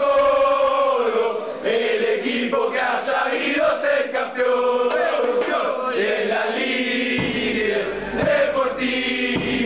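Football supporters chanting a club song together in unison, with a drum beating along; a deeper drum comes in about seven seconds in.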